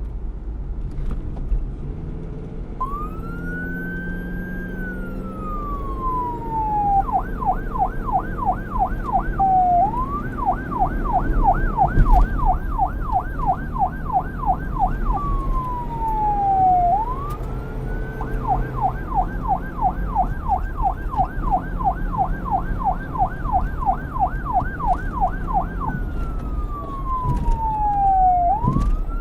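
Electronic police siren starting about three seconds in, switching back and forth between a slow wail that rises and then falls over a few seconds and a fast yelp of about four warbles a second, over a low rumble.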